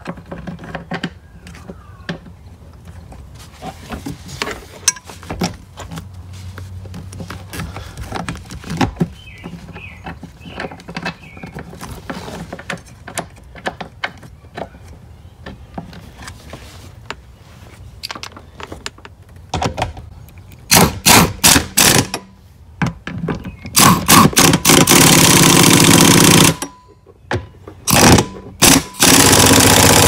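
Small clicks and scrapes of a seat bolt being threaded in by hand. Then, in the last third, a pneumatic impact wrench hammers the 15 mm seat bolts down: several short bursts, followed by longer runs of a few seconds each.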